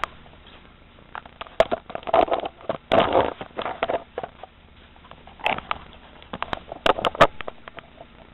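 Irregular handling noise: scattered clicks and knocks with short rustling stretches in between, as objects are set in place by hand.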